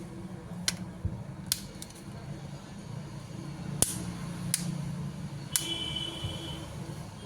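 Scattered sharp clicks and taps of small hard objects, about six spread over several seconds, over a low steady hum. A brief high tone sounds about five and a half seconds in.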